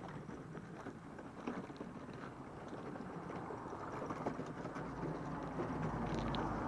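Small wooden cart pulled by a dog, its wheels rolling and rattling over asphalt and then crunching onto gravel, with footsteps alongside. The rolling noise grows a little louder near the end.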